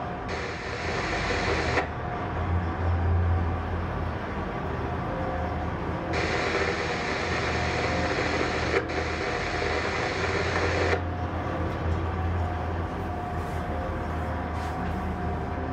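Tugboat's twin V8 marine diesel engines running steadily, heard on board as a deep, even drone with a hum over it. A higher hiss drops away and comes back a few times.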